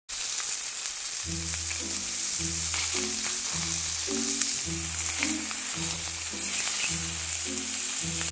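Loud, steady sizzling like food frying in a hot pan, with scattered crackles, over music whose bass notes and chords come in about a second in.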